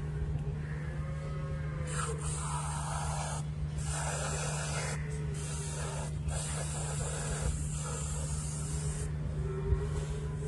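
Aerosol wound-spray can hissing in four bursts, the longest about three seconds, from about two seconds in to about nine seconds in, as purple antiseptic is sprayed onto the cow's skin over the toggle suture site.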